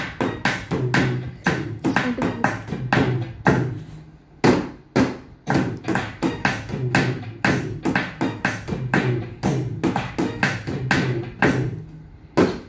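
Hand drumming on an upturned plastic bucket and the top of a small plastic study table: a fast, steady rhythm of slaps and taps, with a short pause about four seconds in.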